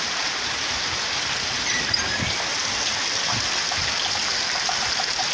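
Heavy rain falling steadily, an even hiss of rain with water running off over the ground.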